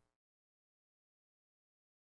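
Silence: the soundtrack is digitally silent.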